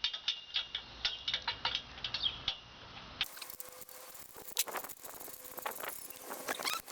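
Hand socket ratchet clicking in quick, uneven runs as a bolt is turned out.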